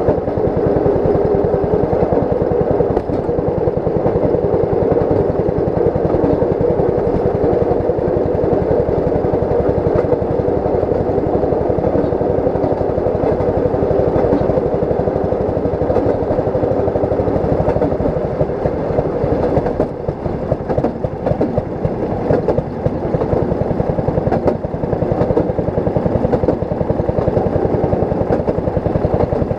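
A railroad speeder (track motorcar) running along the rails: its small engine running steadily with the clatter of steel wheels on the track, dipping slightly in level about two-thirds of the way through.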